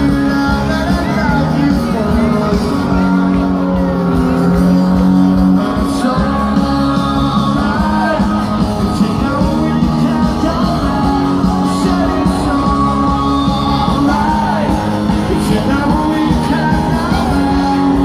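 Rock band playing live with a lead vocal, sustained chords over a steady band, heard loud from within the crowd in front of the stage.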